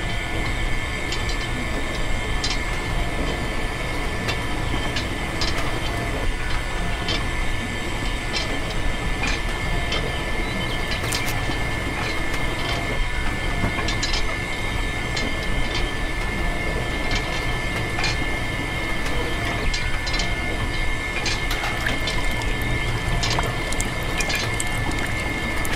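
The small electric motor of a miniature model juice-pressing machine running steadily and turning its drum through a belt, with a constant high whine and scattered clicks and rattles.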